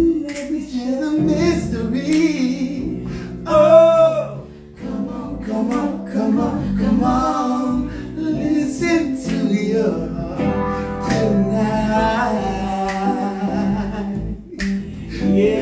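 Live R&B singing, several voices harmonising and ad-libbing over sustained chords on an electric stage keyboard.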